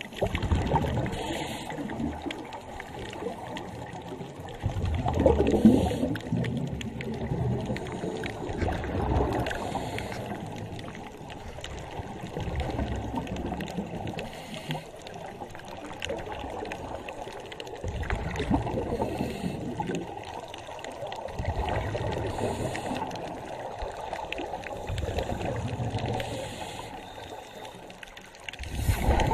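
Scuba divers breathing through their regulators underwater: surges of exhaled bubbles rushing and gurgling, about one every four seconds.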